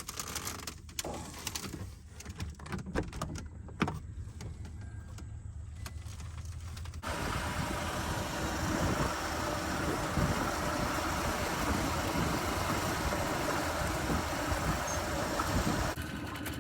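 An engine running steadily underneath, with scattered clicks and knocks for the first several seconds. About seven seconds in, a louder, even rushing noise starts suddenly; it drops again near the end.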